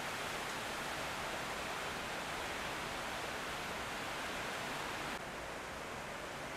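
Steady, even hiss with no distinct sounds in it, dropping slightly and turning duller about five seconds in.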